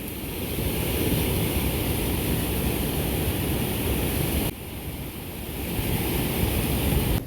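Fast river water rushing through white-water rapids, a steady loud noise that dips about four and a half seconds in and then builds back up.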